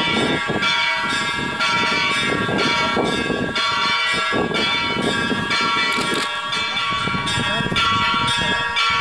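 Orthodox church bells ringing, several bells struck in quick succession so their tones overlap and keep ringing, with people's voices beneath.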